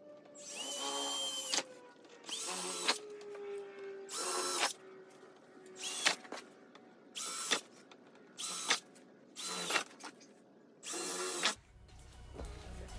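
Cordless drill with a 3/8-inch bit boring through the plastic of a BMW E92 M3 front bumper cover, run in about eight short bursts of a second or less each, enlarging the mounting holes for a front lip.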